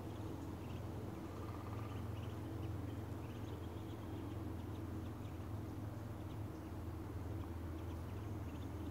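Quiet spring woodland ambience: faint bird chirps scattered throughout over a steady low rumble.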